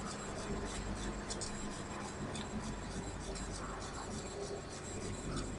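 Quiet room tone of a home voice-over recording: steady hiss and low hum, with faint scattered ticks.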